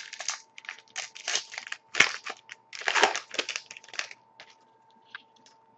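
A trading-card pack wrapper being torn open and crinkled: a run of rustling crackles that stops about four seconds in.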